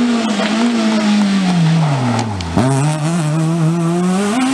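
A Renault Clio rally car's engine at high revs. The pitch falls steadily as the driver comes off the throttle, jumps back up sharply about two and a half seconds in, then climbs again as it accelerates.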